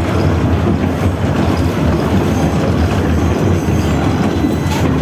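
71-154 (LVS-2009) tram running at speed, heard from inside the passenger cabin: a steady low rumble of wheels on rails and running gear, with a brief click near the end.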